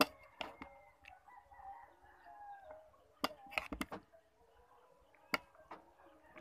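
A rooster crowing, one long call that ends about three seconds in, under sharp clinks of a spoon against ceramic bowls and plates. The clinks are the loudest sounds: a couple at the start, a quick cluster around the middle and one more about five seconds in.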